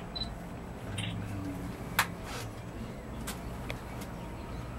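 Steady low hum and rumble inside a moving cable-railway gondola, with one sharp click about two seconds in.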